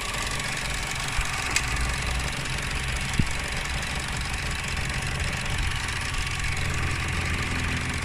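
Holden Cruze's Ecotec four-cylinder engine idling steadily, heard close up from the open engine bay, with one light click about a second and a half in.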